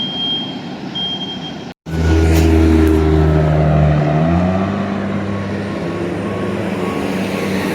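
A heavy vehicle's engine, most likely a fire truck's, running loud after an abrupt cut. Its pitch drops about four seconds in and then climbs steadily again. Before the cut, two short high beeps sound over road noise.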